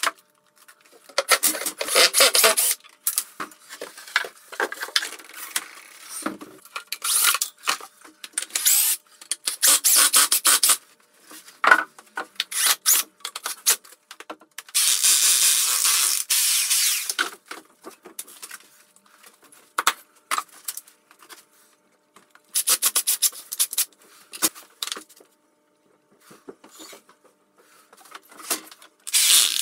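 Wood being handled and pushed against a wall, with tools picked up and set down. This comes as a string of separate rubbing and scraping bursts, with a longer stretch of rasping noise about halfway through.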